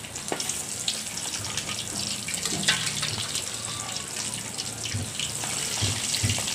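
Chicken deep-frying in hot oil in a large wok: a steady sizzle dotted with fine crackles as pieces go in. Near the end a few dull knocks as a slotted spatula stirs the pieces in the pan.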